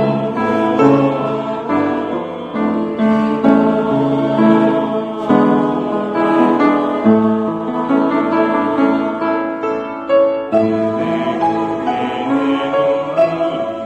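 Church choir singing a Korean Catholic hymn in harmony with instrumental accompaniment.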